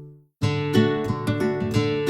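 Background acoustic guitar music: the tail of a fading chord, a brief silence, then a new passage of regular strummed chords begins about half a second in.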